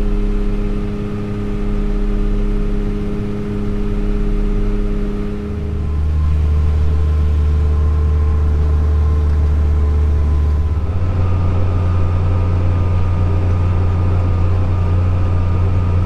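Tractor engine running steadily under load, heard from inside the cab, a constant low drone with a few steady tones above it. The pitch and mix shift about six seconds in and again about eleven seconds in.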